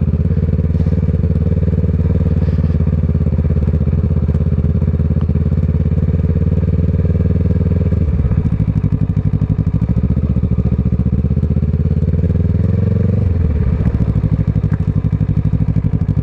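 Kawasaki ER-6n's parallel-twin engine through a Scorpion exhaust, running at low revs. The pitch dips about eight seconds in, climbs slowly, then drops sharply about thirteen seconds in before settling again.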